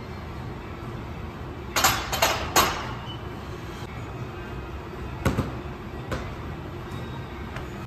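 Steady gym background hum with a short cluster of knocks and rattles about two seconds in and another sharp knock around five seconds, as equipment is handled.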